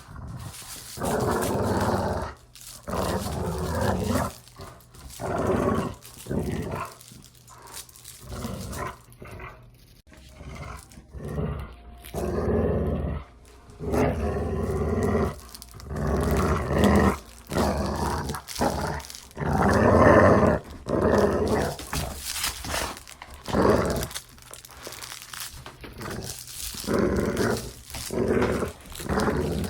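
A dog play-growling in repeated rumbling bouts, each lasting from about half a second to two seconds with short breaks between them, mixed with a few sharp clicks and a bark or two.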